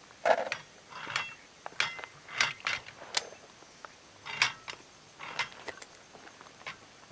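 Steel paddles of a dueling-tree target being flipped back over by hand, each one clanking against the tree's metal post as it swings across: a series of sharp, irregular metal clanks with a short ring.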